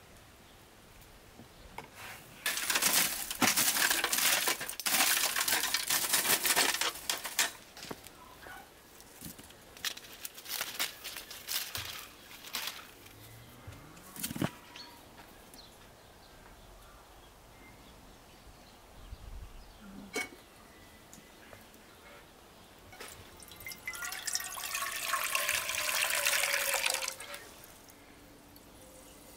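Water running and splashing in two long stretches, the second about three-quarters of the way through. Scattered small knocks and clicks come in between.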